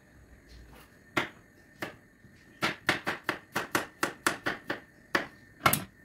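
Knife chopping food on a cutting board: two single strokes, then a quick run of about ten at roughly four a second, then two more, the last the loudest.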